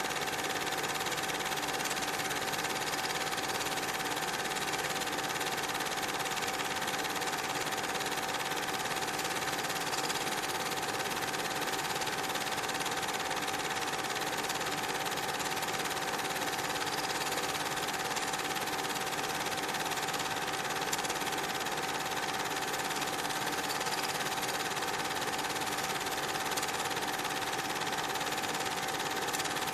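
Steady mechanical whir with a constant high hum over hiss, unchanging throughout, with no separate beats or strokes.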